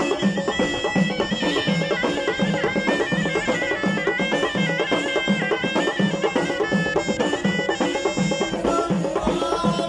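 Amazigh Ahidous folk music: bendir frame drums beating a steady pulse under a high, held melodic line that steps from note to note.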